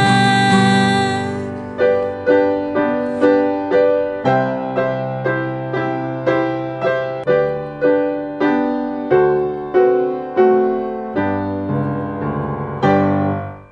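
Music: a piano-like keyboard holds a chord, then strikes chords about every two-thirds of a second as the song's outro, and stops at the end.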